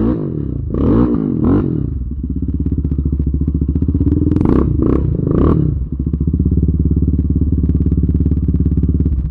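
ATV engine running close by, revved up in short blips early on and again around the middle, then holding a steady pulsing run.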